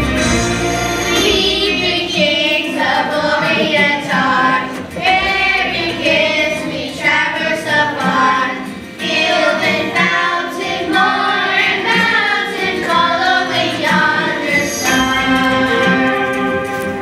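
A children's choir singing a Christmas song to instrumental accompaniment; the voices come in about a second in, after a short instrumental lead-in.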